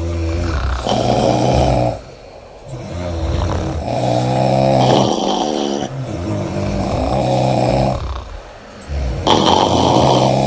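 Loud snoring from sleeping women: four or five long, rattling snores in quick succession, some running into one another.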